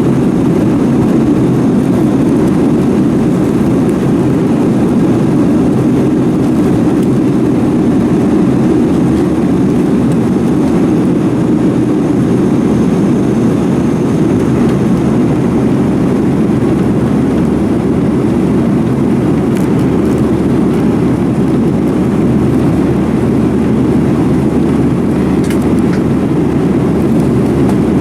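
Steady cabin noise inside a Boeing 737-900ER: its CFM56-7B jet engines and the airflow as a continuous low rumble, unchanging in level.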